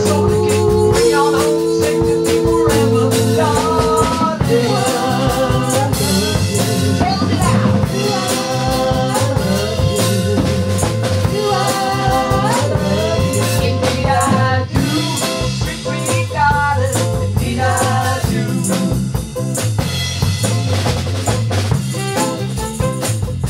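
Live band playing: electric bass and drum kit keeping a steady beat, with saxophone and a woman singing lead.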